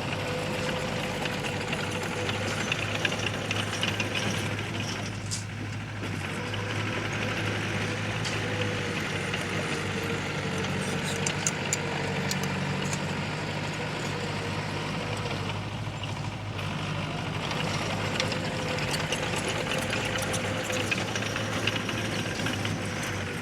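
Heavy earth-moving machine's diesel engine running steadily, with scattered clanks and rattles.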